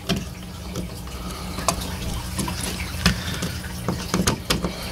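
Scattered clicks, knocks and scrapes of a duplex wall receptacle and its wires being pushed into a blue plastic electrical box, with a quick cluster of clicks near the end as a screwdriver works the mounting screw. A steady low hum runs underneath.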